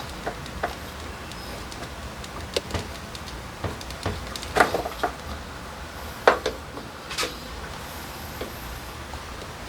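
Hand tools working on a scooter during carburetor removal: a series of irregular clicks and knocks, loudest in a cluster a little before the middle and one sharp knock past it.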